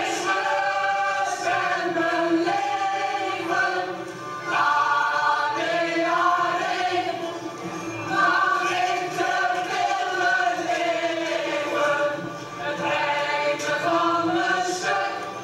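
A group of voices singing together, choir-style, with notes held for about a second at a time.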